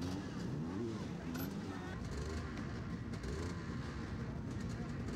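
Several dirt bike engines running at idle under a crowd's chatter.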